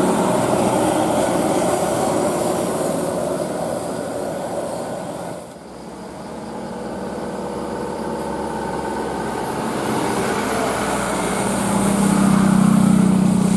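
A heavy road vehicle driving past, its engine and tyre noise continuous with a short drop about five and a half seconds in. Near the end a steady low engine note swells to its loudest.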